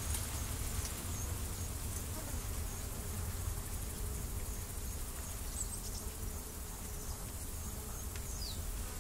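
Outdoor ambience of insects buzzing and chirping in a steady high hiss over a low rumble, with a few faint taps.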